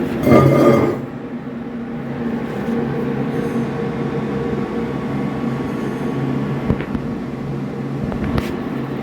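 TIG welding arc on carbon steel, run at about 170 amps on a Lincoln Square Wave TIG 200, giving a steady electrical hum. There is a louder swell about half a second in.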